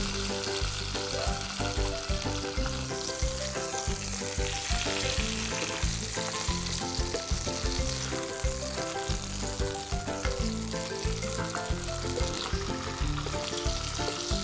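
Two filefish sizzling steadily as they shallow-fry in oil in a stainless steel pan, with a spatula turning them in the second half. Background music plays under the sizzle.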